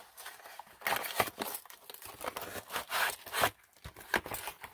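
Handling noise as a boxed set of paint tubes in a plastic tray is pulled out and moved about: irregular rustling and scraping with small sharp clicks and knocks.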